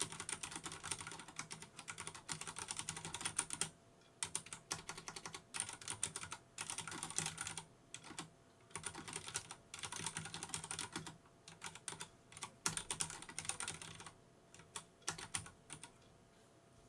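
Typing on a Vortex Race 3 RGB mechanical keyboard with Cherry MX Brown switches: fast runs of keystrokes broken by short pauses, thinning to a few scattered keystrokes near the end.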